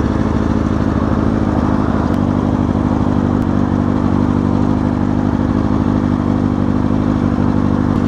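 2004 Kawasaki Ninja ZX-6R 636's inline-four engine idling steadily at a standstill, its pitch holding level with no revving.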